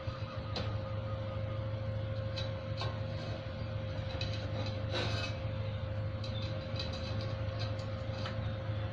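Electric arc-welding machine humming steadily, with a steady higher tone over the hum and scattered ticks and clicks, one sharper crackle about five seconds in.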